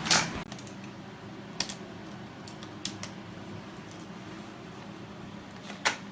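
Scattered clicks and taps of Hot Wheels toy cars and plastic track pieces being handled: a sharp click at the start, a few lighter ones in the middle and another near the end.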